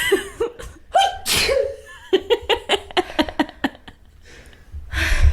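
A person sneezing twice, about a second apart, followed by a short run of quick laughter. Another sneeze starts right at the end.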